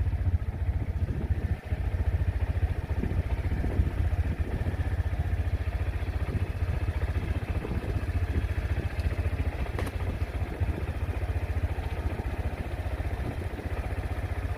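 Wind buffeting the microphone: a heavy, fluttering low rumble with a brief dip about one and a half seconds in.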